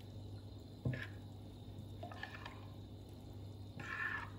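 Metal spoon stirring semolina into milk in a ceramic bowl: soft liquid sloshing, with a sharp knock of the spoon against the bowl about a second in and fainter spoon clicks later.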